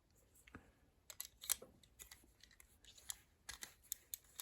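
Faint metallic clicks and scrapes of a key being put into and turned in an antique Chubb patent padlock, a dozen or so small irregular clicks.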